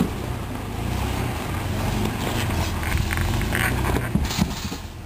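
Jeep Cherokee Sport (XJ) engine running steadily at low speed as the Jeep crawls down a rock ledge, with a few brief knocks about four seconds in.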